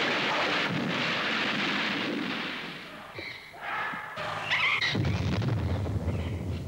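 Dynamite blasts for digging a canal through swamp forest. A blast's noise dies away over the first few seconds, then a second, deeper blast rumbles out about five seconds in.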